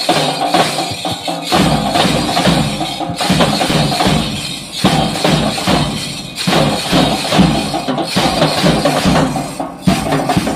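School percussion band playing a steady marching beat on crash cymbals, metal hand shakers, snare drum and bass drum, the pattern repeating about every second and a half.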